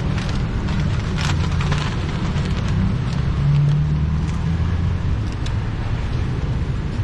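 Steady low rumble of motor traffic on the road beside the stall, with an engine swelling briefly a little past halfway, and light clicks over it.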